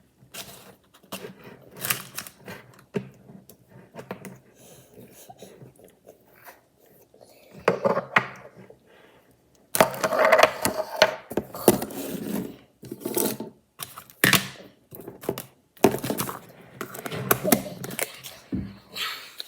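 Slime being squished and worked by hand, giving runs of crackling and sharp clicking pops.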